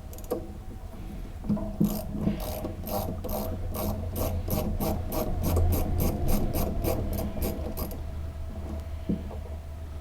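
Socket ratchet clicking in a long run of quick, even strokes, about three to four clicks a second, as a 7/16-inch starter mounting bolt is backed out; the clicking then stops.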